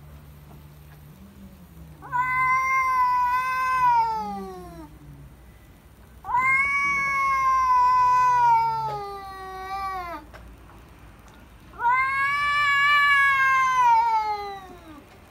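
A cat caterwauling: three long, drawn-out yowls of about three seconds each, each rising slightly and then falling in pitch. It is the threatening yowl of a cat squaring up to a rival before a fight.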